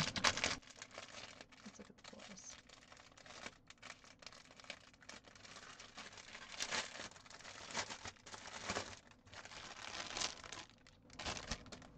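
Clear plastic packaging bag crinkling as it is handled and opened to get at the embroidery floss inside, with irregular rustles and sharp crackles.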